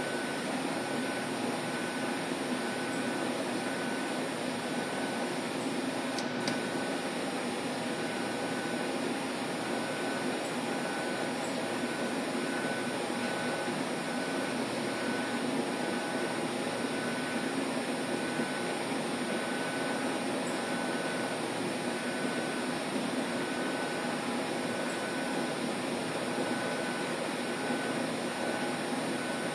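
Steady hum and hiss with a faint high tone pulsing on and off about once a second, fitting a piezoelectric nanopositioner being driven in repeated bursts. There is one short click about six seconds in.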